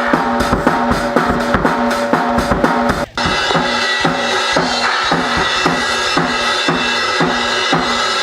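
Rock music driven by a full drum kit with a steady beat of kick and snare under sustained pitched instruments; it drops out for an instant about three seconds in, then carries on.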